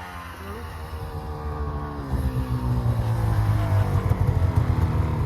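Two-stroke 800 snowmobile engines running hard in a race, growing steadily louder, with the sound strengthening sharply about two seconds in.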